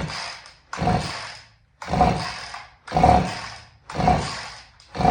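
Husqvarna 50 two-stroke chainsaw being pull-started: six quick yanks of the recoil starter cord about a second apart, the engine cranking over without catching. It sounds like it's trying but won't run, which the owner puts down to piston rings so weak that the low compression can't draw fuel up.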